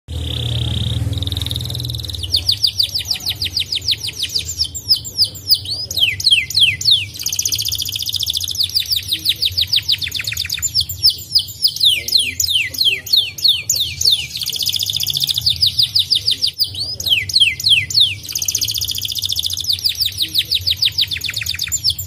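Domestic canary singing: phrase after phrase of fast trills made of rapidly repeated falling notes, some rolls faster and higher than others, over a steady low hum. A brief steady tone sounds for the first two seconds before the song starts.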